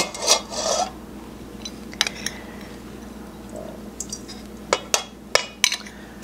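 Metal spoon scraping and clinking against a glass bowl and a stainless steel mixing bowl as dry seasoning is spooned out onto chicken wings. A scrape at the start, then scattered light clinks, several close together near the end.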